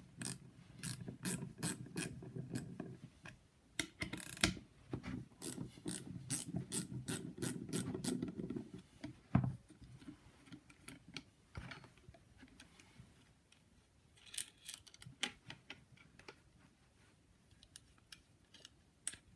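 Socket ratchet clicking in rapid runs as the 10 mm nuts holding a lopper's top blade are undone, in two long bursts through the first half. After that, scattered clicks and knocks as the tool and loosened parts are handled.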